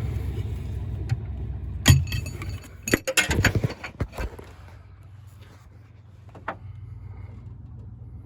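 Metal hand tools clinking and clanking: a sharp knock about two seconds in, then a quick cluster of clinks and clanks, and a single click later, over a low steady rumble.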